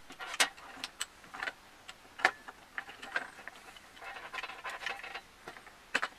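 A cordless drill's trigger switch and wiring being fitted by hand into its plastic housing: irregular small clicks and taps of plastic parts, the sharpest about two seconds in and near the end.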